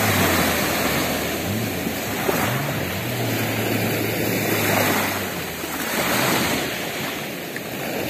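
Small sea waves breaking and washing over a pebble shoreline, the wash swelling and ebbing every few seconds. Under it, a distant jet ski's engine drones, its pitch briefly rising and falling, and fades out about five seconds in.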